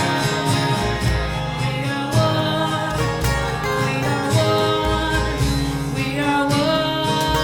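Worship music: a band with acoustic guitar playing under sustained singing.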